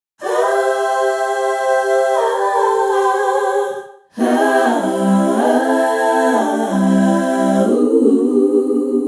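Wordless voices singing held chords in two phrases, with a short break about four seconds in.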